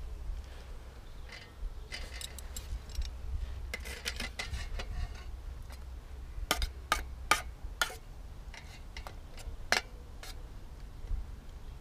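Metal spoon stirring baked beans in a small camping saucepan: soft scraping, then several sharp clinks of the spoon against the pan about halfway through and one more near the end.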